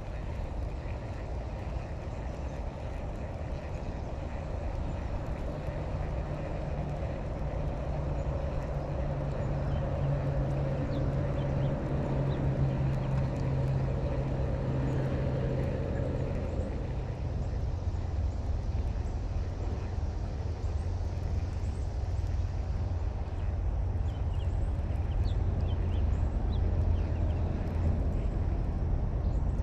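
A steady, low engine drone that grows gradually louder, its pitch dropping a little about halfway through.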